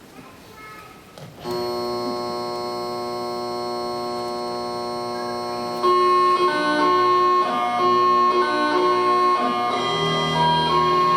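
Highland bagpipes striking up: a steady drone chord comes in about a second and a half in, and about six seconds in the chanter starts a tune over it, louder.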